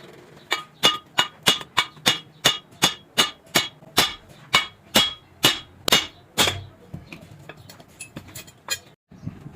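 Hammer striking steel in a steady run of about seventeen ringing blows, roughly three a second, then a few lighter taps near the end.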